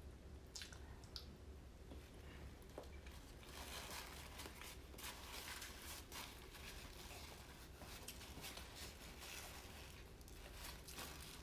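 Faint crinkling and small scattered clicks over a low steady hum.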